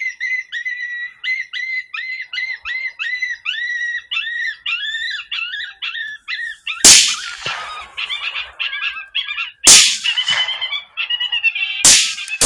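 High squealing calls repeat about three times a second. A rifle shot cracks about seven seconds in, a second about three seconds later and a sharper third near the end, while the squealing carries on, more ragged, between the shots.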